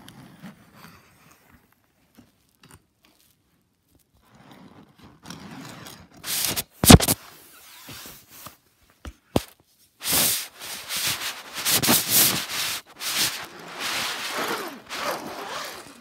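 Toy die-cast cars being pushed and scraped across a fabric play mat by hand, with rustling handling noise. A sharp plastic click about seven seconds in is the loudest sound, with a smaller click about two seconds later.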